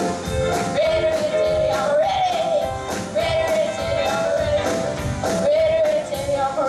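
Rock and roll music with a fast, steady drum beat, guitar, and a long held note that bends in pitch.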